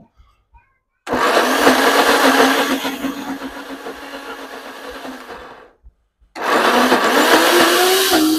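Electric countertop blender grinding soaked beans with very little water into a thick batter, run in two bursts: it starts about a second in, cuts out near six seconds, and starts again half a second later, its motor pitch rising during the second run. The thick batter loads the motor, so the blending is done in pulses.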